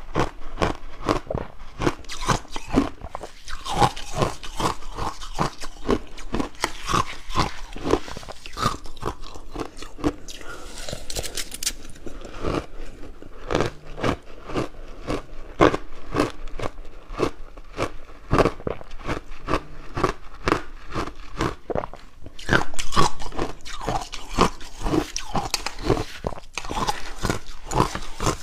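Close-miked biting and chewing of purple ice eaten with yogurt: a long run of sharp, rapid crunches, a little louder for a moment late on.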